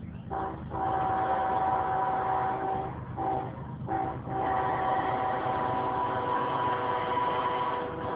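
Multi-tone air horn of a GE diesel freight locomotive sounding a long blast, a short one, then another long blast, the crossing signal for an approaching grade crossing. The locomotive's diesel engine rumbles underneath.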